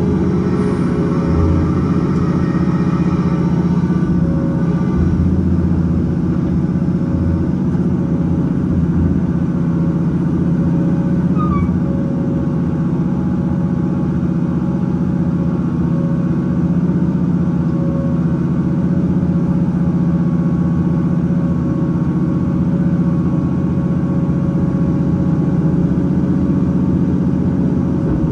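Heavy diesel engine running steadily at an even pitch.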